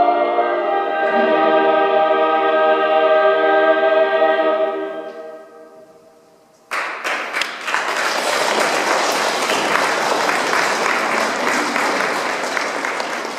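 A choir singing long held notes that die away about five seconds in. About a second and a half later, audience applause starts suddenly and keeps going.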